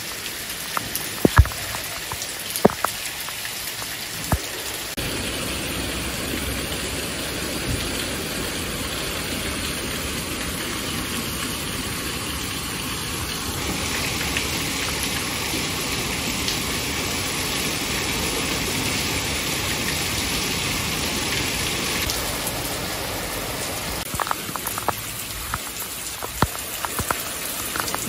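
Heavy rain pouring down with a steady hiss, with sharp taps of single drops landing close by in the first few seconds and again near the end.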